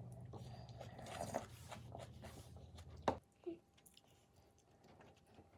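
Quiet eating sounds: chewing and small clicks of tableware over a steady low hum. A sharp click comes about three seconds in, and the hum stops with it, leaving only faint ticks.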